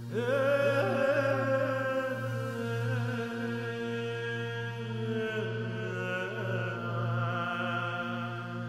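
Soundtrack music: a low, steady drone with a slowly wavering, chant-like melody of long held notes coming in at the start.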